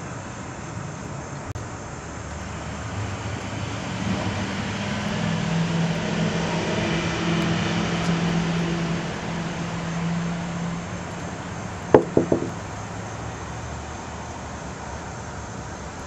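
A passing engine's steady drone swells over several seconds and fades away. About twelve seconds in, three sharp clicks follow in quick succession.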